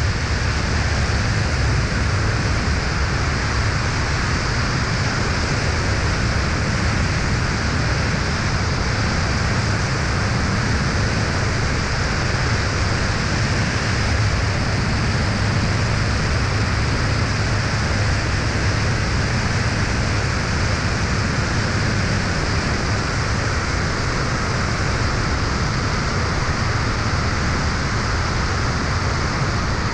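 Steady rush of wind over a camera mounted under the wing of an Aeroprakt A22 light aircraft in flight at about 100 km/h, with the low drone of its engine and propeller underneath.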